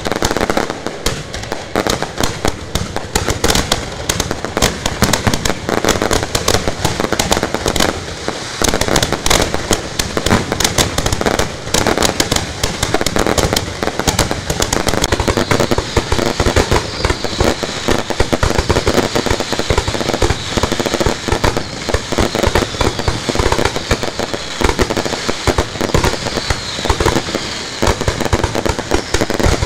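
Fireworks set off a few metres away: an unbroken, dense volley of cracks and bangs from ground-level fountains and barrages. Thin whistles run through the second half.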